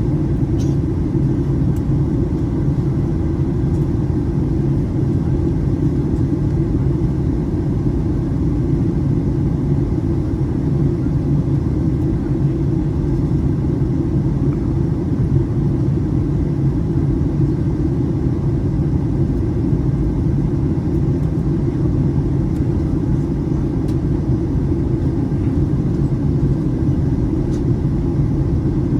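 Steady low rumble of an airliner cabin during descent: engine and airflow noise heard from inside the cabin, holding an even level.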